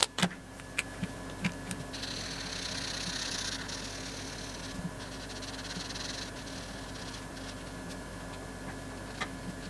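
Felt-tip marker scratching over paper while colouring in, a steady hiss from about two seconds in that eases off a little after six seconds. A few light clicks and taps in the first second and a half as the markers are handled.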